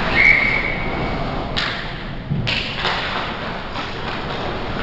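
Ice hockey play in a large indoor rink: thuds of puck and sticks and a few sharp scrapes of skate blades on the ice, about a second and a half in and again near three seconds. A brief high squeal sounds just after the start.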